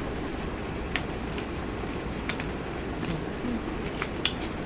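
Steady hiss of heavy rain, with a few light clicks scattered through it.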